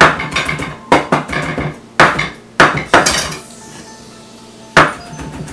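Kitchen knife chopping garlic and parsley on a wooden cutting board: sharp knocks of the blade on the board, about six loud strikes with quicker, lighter chops between them, over faint background music.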